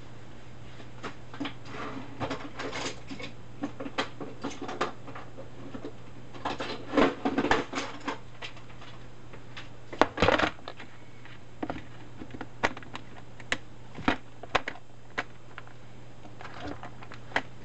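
Scattered clicks, taps and rustles of small objects being handled and moved about, with a louder knock about ten seconds in, over a faint low steady hum.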